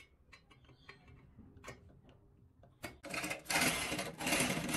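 Light clicks and taps, then about three seconds in a cordless drill with a long bit runs loudly in two bursts of about a second each, driving a screw through a steel hinge bracket into the wall.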